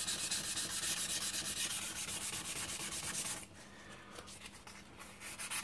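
Wet-and-dry abrasive paper rubbed back and forth by hand on the face of a new vented cast-iron brake disc in quick, even strokes, scrubbing off a stubborn storage mark. The rubbing stops for about a second and a half after the middle and starts again near the end.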